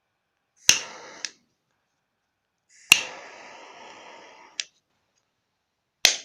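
Butane jet lighter sparked three times: each time a sharp ignition click and then a steady hiss of the gas flame. The first burns about half a second, the second about a second and a half and ends with another click, and the third is cut short near the end.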